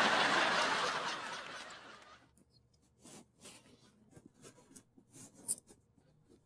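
Sitcom laugh track of a crowd laughing, fading out over the first two seconds, followed by a few faint ticks and rustles.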